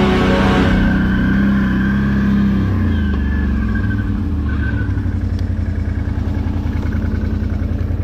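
Can-Am 6x6 ATV engine running, its note dropping about three seconds in and settling into a fast, even idle pulse. A tail of background music ends within the first second.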